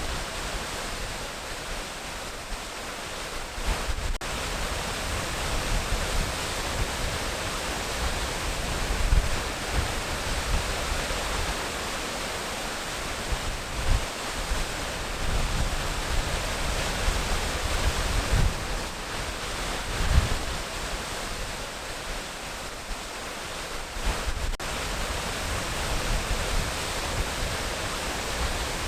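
Waterfall rushing steadily, with uneven low rumbles welling up now and then beneath the constant hiss of falling water.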